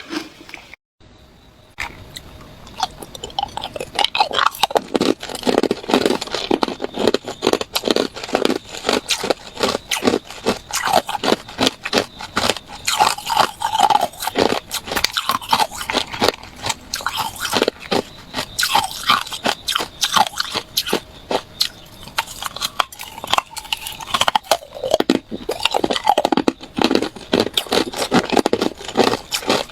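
A person chewing and crunching hard ice close to the microphone: a dense, continuous run of sharp, crisp crunches. A brief break about a second in, then the crunching resumes.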